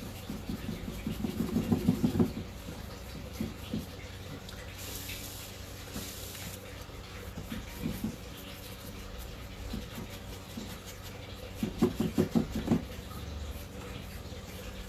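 A hand spray bottle misting water onto a chalk-painted tabletop, two short hissing spritzes about five and six seconds in. Runs of quick soft thumps at the start and about twelve seconds in are the loudest sounds.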